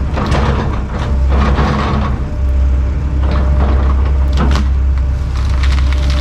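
Heavy diesel land-clearing machine running under load with a steady low drone, with repeated crackling and scraping surges every second or so as brush and wood are torn up.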